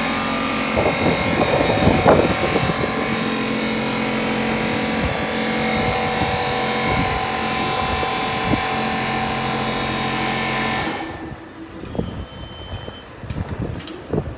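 Diesel engine of a JCB telehandler running steadily under load as it carries a raised pallet of boxed cabinets. About 11 seconds in the sound drops suddenly to a much lower level, with a few faint knocks after.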